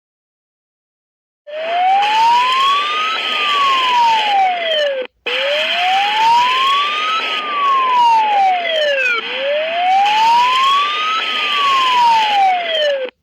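Poland's civil-defence alarm siren wailing: one tone rising and falling in pitch, three slow cycles of about four seconds each, with a brief dropout after the first cycle. It is the Polish air-raid / general alarm signal.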